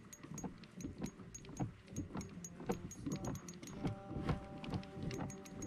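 Spinning reel on an ultralight rod being cranked while fighting a small kokanee, giving a steady rapid clicking of about five clicks a second with soft low knocks of handling. Background music comes in about halfway through.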